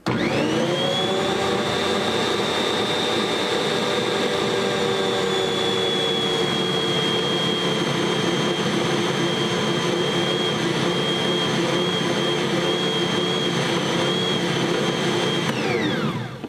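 Bosch stand mixer motor switched on, whining quickly up to speed, then running steadily with a high whine while the dough hook mixes flour, water and sourdough starter into a shaggy dough. The pitch eases slightly lower over the first several seconds. Near the end it is switched off and the whine falls away as it winds down.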